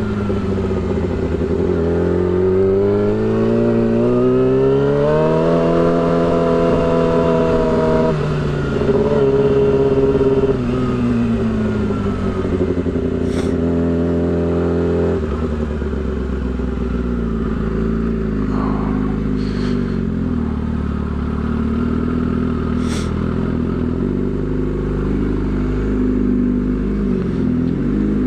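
Yamaha R6 inline-four sport bike engine with a shorty exhaust, heard while riding: it revs up through a gear for several seconds, drops in pitch at a shift, then eases off and settles into steady cruising.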